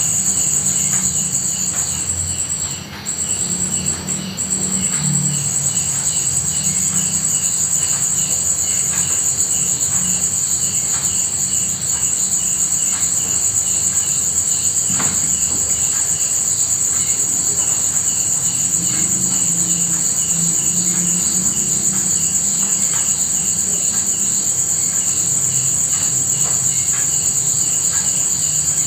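A steady night chorus of insects: a loud, continuous high-pitched trill, with a softer chirp pulsing about twice a second beneath it. The trill falters briefly about three seconds in.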